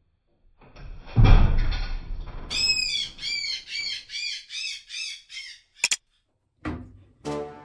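Edited-in sound effects: a low thud with a rushing noise, then a quick series of about ten short bird calls, each rising and falling in pitch. Near the end a click is followed by brass music.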